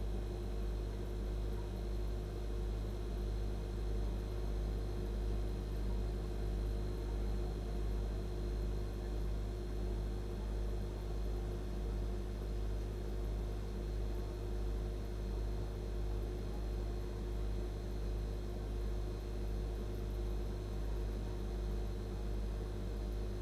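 Refrigeration compressor droning: a steady low hum with a buzz above it and a slight, even pulsing in level.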